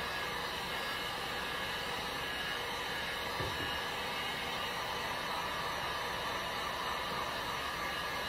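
Heat gun running steadily, a constant loud rush of blown air, as it warms wet epoxy paint on a tumbler so the paint flows.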